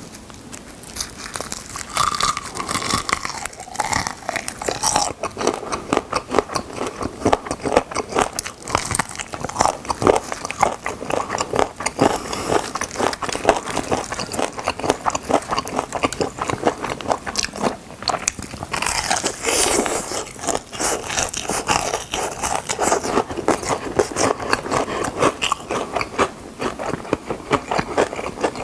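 Close-up crunching bites and chewing of crispy fried chicken drumsticks, a dense run of crisp crackles and snaps.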